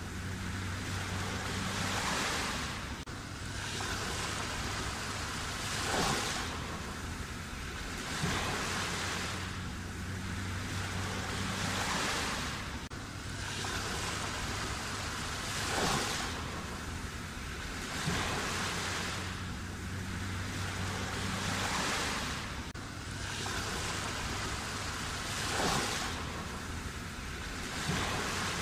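Black Sea waves breaking and washing in, one surge every two to four seconds over a continuous hiss of surf.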